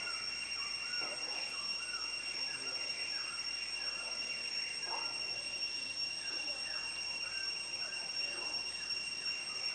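Forest ambience: a steady insect drone holding two high, even tones, with short falling bird calls repeating throughout.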